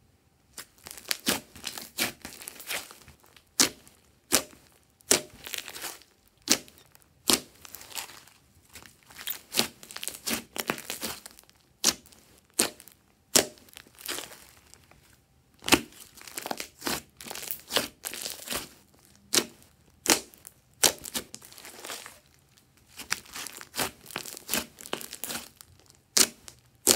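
Hands squishing, poking and pressing a large blob of glossy slime, making sharp wet clicks and pops as trapped air is squeezed out. The clicks come in irregular flurries of several a second, with short pauses between handfuls, starting about half a second in.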